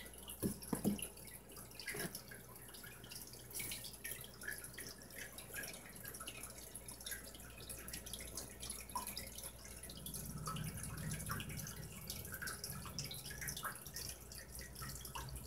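Aquarium water dripping and trickling in many small scattered ticks over a low steady hum. There are a few soft knocks in the first two seconds, and a second low hum comes in about two-thirds of the way through.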